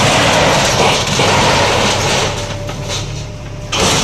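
Heavy demolition machinery with its diesel engine running under a loud, rough rumbling noise. The noise eases for about a second past the middle, then comes back.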